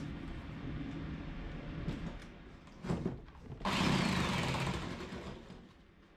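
Jigsaw with a fine-tooth metal-cutting blade making a cross-grain cut in thin plywood. It runs steadily at first, cuts louder for about two seconds past the middle with a falling whine, then eases off near the end.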